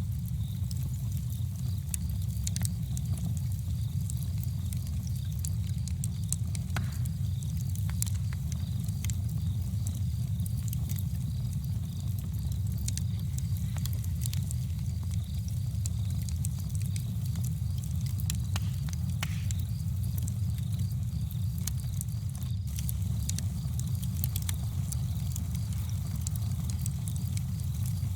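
Campfire burning, with irregular sharp crackles and pops scattered over a steady low rumble.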